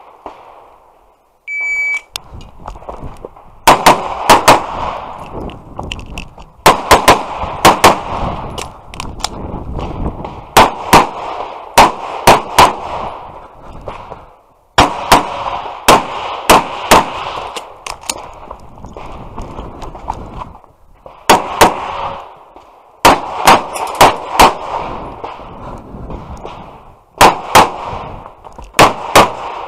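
Shot-timer start beep about a second and a half in, then handgun shots fired rapidly in pairs and short strings, with brief pauses between the strings while the shooter moves between positions on the stage.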